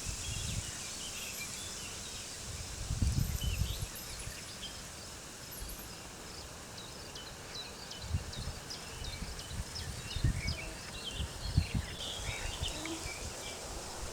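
Small birds singing in many short chirps over a steady high hiss, with wind gusting in low rumbles about three seconds in and again from about eight seconds on.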